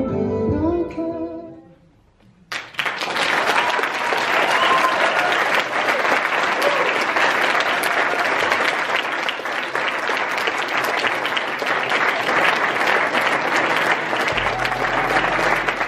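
The end of the performance music fades out, a brief hush follows, and about two and a half seconds in an audience breaks into applause that continues steadily.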